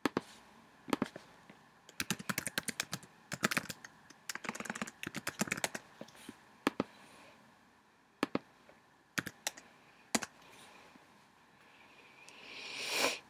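Typing on a computer keyboard: quick runs of key clicks as a search term is entered, then a few single clicks about a second apart. A short rising hiss comes near the end.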